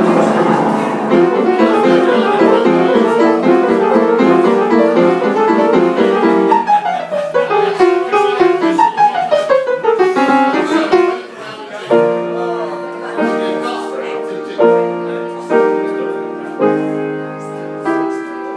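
Solo piano played fast, with quick runs sweeping down and back up the keyboard. About twelve seconds in it changes to full chords struck roughly once a second.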